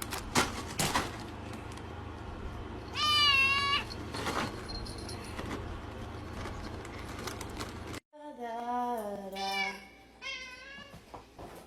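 A domestic cat meowing: one short wavering meow about three seconds in, over steady background noise. After a sudden cut, two longer wavering cries follow.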